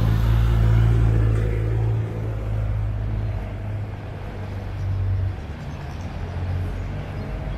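Low engine rumble of a motor vehicle passing on the street, loudest in the first second or two and fading out about five seconds in, over general street traffic noise.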